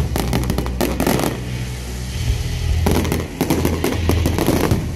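Aerial fireworks display: shells bursting in quick series of sharp bangs and crackles. The bursts come thickest in the first second and again over the last two seconds.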